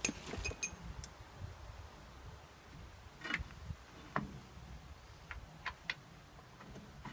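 Scattered metal clinks and clicks of hand tools and brake parts being handled, with a couple of short ringing metallic clinks near the start.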